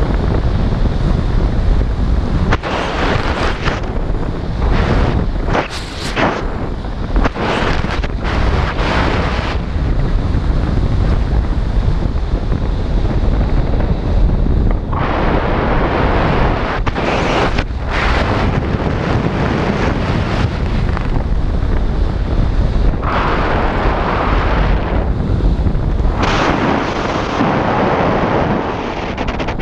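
Wind buffeting a camera's microphone during a descent under an open parachute canopy: loud rushing wind noise that swells and eases in irregular gusts.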